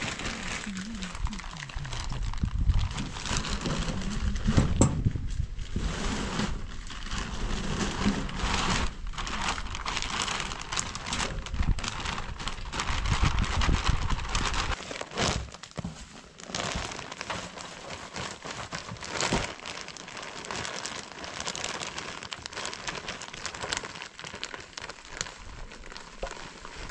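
Rustling and crinkling of hands working potting soil and pots while repotting plants, with many small clicks and scrapes and a low rumble through the first half.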